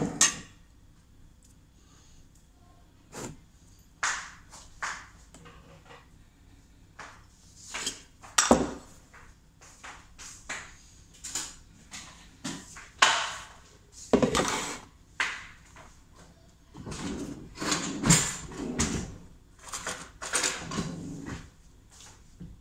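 Irregular knocks, clicks and short scraping clatter of things being handled on a kitchen counter, starting with the lid of a glass jar mug being screwed shut. The sounds come one at a time, with a busier run of clatter about three quarters of the way through.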